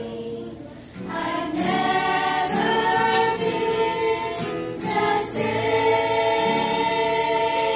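Women's choir singing a gospel hymn in harmony, accompanied by acoustic guitar. After a short dip the voices come back in about a second in, then hold a long note through the last few seconds.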